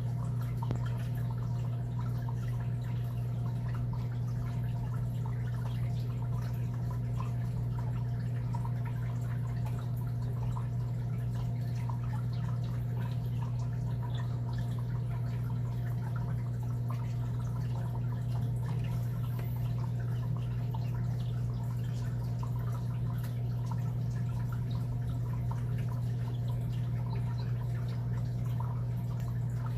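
Steady low hum with faint scattered ticks and crackles over it.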